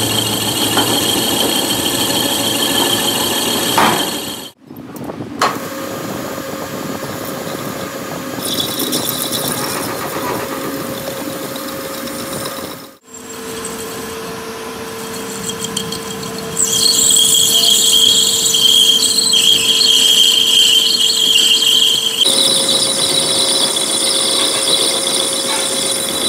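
Metal-turning lathe running while the cutting tool cuts a metal bush, with the tool squealing on the metal. The sound drops out briefly twice, and about two-thirds of the way through it gets louder and shriller.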